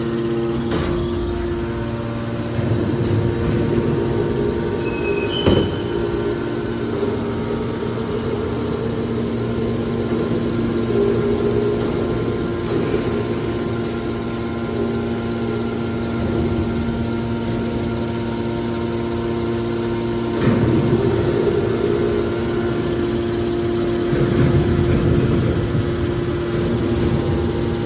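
Hydraulic metal baler compactor running: a steady hum from its motor and pump, with one sharp bang about five seconds in and louder, rougher stretches of noise around twenty and twenty-five seconds in.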